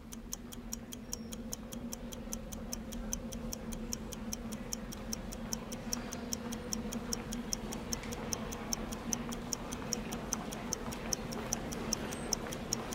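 Clock ticking quickly and evenly, about four sharp ticks a second, over a steady low hum.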